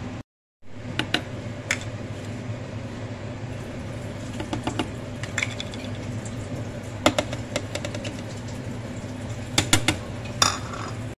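Scattered clicks and light clinks against a plastic food-processor bowl as salt, soda and gram flour are added to soaked dal, over a steady low hum.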